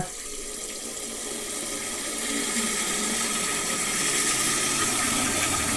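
All-metal handheld bidet sprayer spraying water into a toilet bowl, its steady hiss growing louder as the T-valve is opened further toward full pressure.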